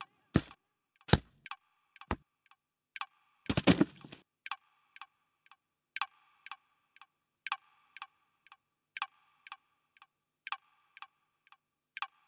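A few heavy thuds, then steady ticking about two ticks a second, every third tick a little louder, each tick followed by a short ringing tone.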